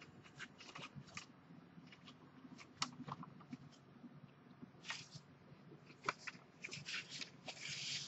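Faint handling noise while the camera is being adjusted: scattered small clicks and soft rustles, with a longer rustling hiss about five seconds in and another near the end.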